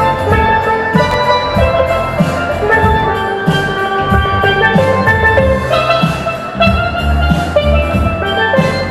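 Steel pan (steel drum) playing a lively melody of quick ringing notes, over a bass line and drum beat.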